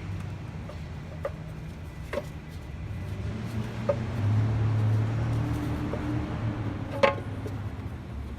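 A few light clicks and knocks of a part being handled and set back into place on the engine, the sharpest about seven seconds in, over a steady low hum.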